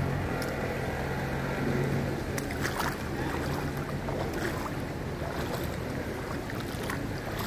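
Rippling floodwater sloshing across a road, with wind on the microphone. A low steady hum fades out about two seconds in.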